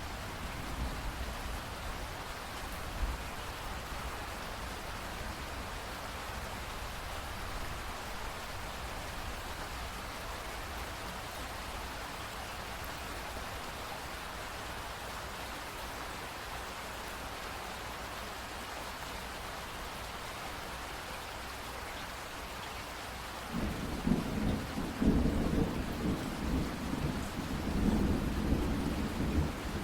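Steady rain falling. About three-quarters of the way through, a loud, uneven rumble of thunder rolls in under the rain.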